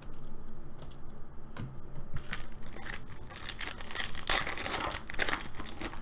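Foil wrapper of a baseball card pack being torn open and crinkled by hand. The crackling starts a couple of seconds in and is loudest near the end.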